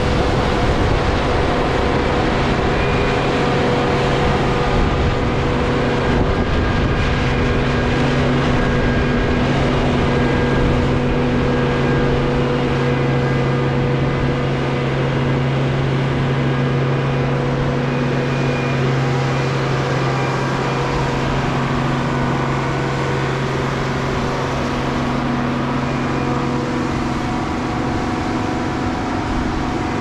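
Steady, loud machine hum: a few held low tones over a rushing noise.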